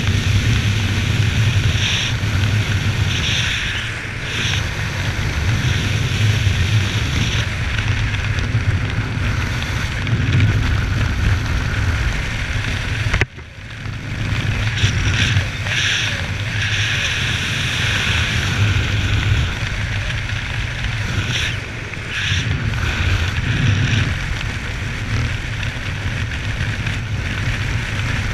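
Airflow of a parachutist's descent under an open canopy, heard as steady wind noise on the camera microphone that gusts up and down, cut by a sudden brief dropout about thirteen seconds in.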